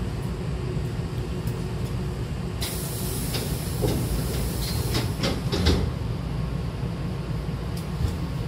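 Hankyu commuter train's air-operated bi-parting sliding doors closing: a sudden hiss of air about two and a half seconds in, then a series of knocks ending in a thud as the two door leaves meet, over the steady low hum of the stopped train.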